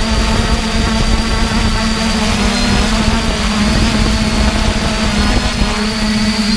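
Multirotor drone's electric motors and propellers buzzing steadily in flight, a loud held hum with a thin high whine above it, and rough low rumble that eases near the end.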